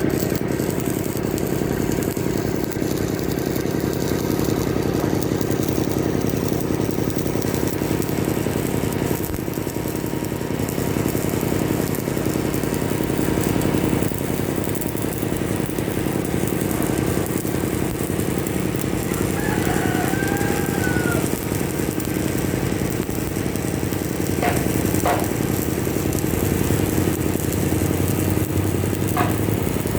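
A steady engine drone runs throughout. A rooster crows once about twenty seconds in, and a few sharp clicks come near the end.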